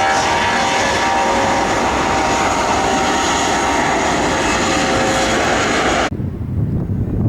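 Jet airliner's turbofan engines running loud, a dense roar with a steady whine in it. About six seconds in it cuts off suddenly, leaving a low rumble.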